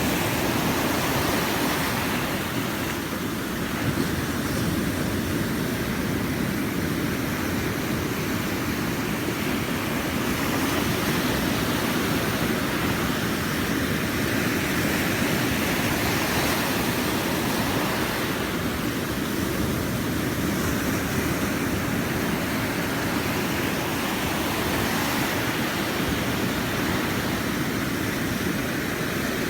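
Ocean surf on a beach: a steady rush of waves breaking and washing in, swelling and easing slowly every several seconds.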